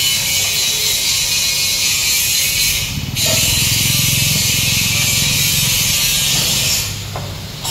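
Diesel engine of a stripped-down truck chassis running as it drives, its low rumble growing louder for a few seconds in the middle, under a steady high hiss that drops out briefly about three seconds in.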